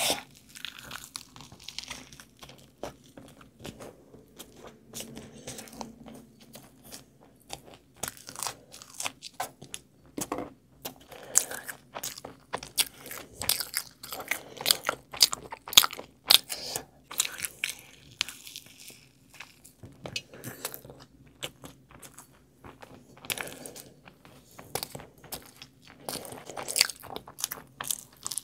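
Close-miked chewing and wet mouth sounds of a person eating soft bread rolls dipped in thick gravy: a dense run of irregular sharp smacks and clicks.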